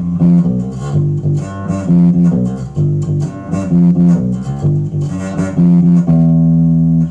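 Homemade five-string electric bass played through an amplifier, its pickup set as a full humbucker with no coil split: a quick run of plucked notes, ending on a note held from about six seconds in.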